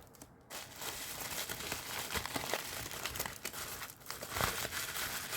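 Packaging being crinkled and rustled by hand as a small box is opened and its wrapped contents taken out, a continuous crackling with a few sharp clicks, getting louder for a moment near the end.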